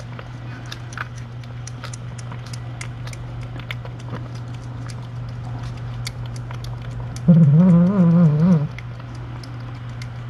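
Mother cat in labour eating wet canned food from a steel bowl, small chewing and lapping clicks over a steady hum. About seven seconds in she gives one low, wavering yowl lasting over a second.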